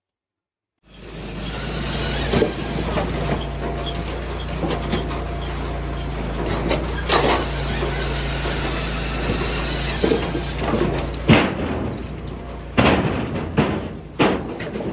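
An engine running steadily, with repeated knocks and clunks of machinery working over it; about 11 seconds in the engine drone drops away, leaving a few separate knocks.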